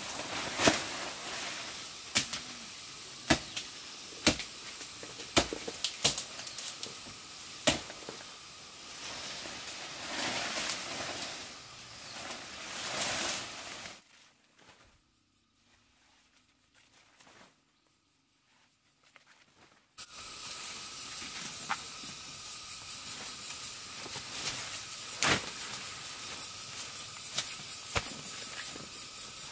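Irregular sharp snaps and cracks over a light hiss. Then a few seconds of near quiet, then insects chirring in a fast, even pulse, a few pulses a second.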